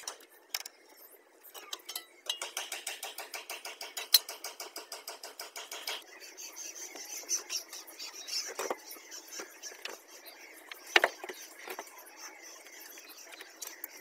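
Handling of a refrigerator door's metal hinge and screws: a run of rapid ticking, about ten a second, for several seconds, then a faint hiss and a few sharp knocks as the door comes off its hinge.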